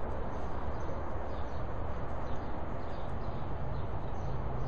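Steady outdoor background noise with a strong low rumble and no distinct events, picked up by the built-in microphone of a Kodak Zi8 pocket camcorder.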